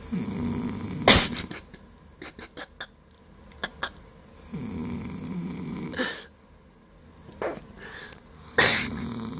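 A boy in deep sleep snoring: three rasping snores about four seconds apart. A loud sharp sound comes about a second in, and several quieter clicks fall between the snores.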